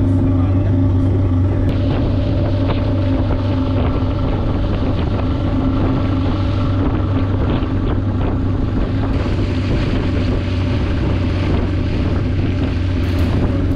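Outboard motor of a small open wooden boat running steadily at speed, a constant low drone, with water rushing along the hull and wind buffeting the microphone.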